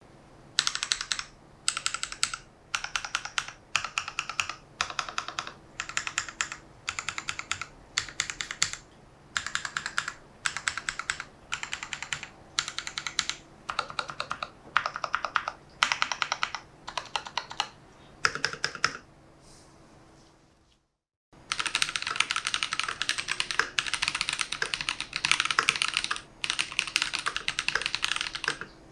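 Typing on a mechanical keyboard fitted with Holy Panda tactile switches: short runs of rapid keystrokes about once a second, then, after a brief break around two-thirds of the way in, fast continuous typing.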